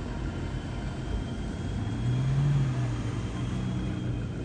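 Engine of an off-road 4x4 SUV running over a low rumble, its note rising and getting louder for a moment about two seconds in.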